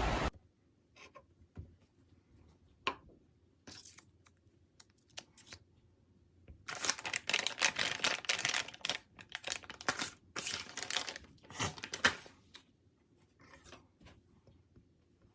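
Small clicks and taps of things being handled by hand, with a stretch of crackly rustling and scraping in the middle and one sharp click near the end.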